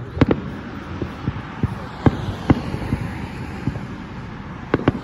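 Aerial firework shells bursting with sharp bangs over a low rumble: a close pair just after the start, two more around two seconds in, and another pair near the end.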